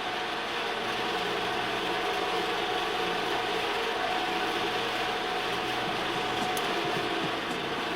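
Koei Sangyo outer-ring-type circular vibrating sieve running: a steady mechanical hum with a constant tone over an even rattle.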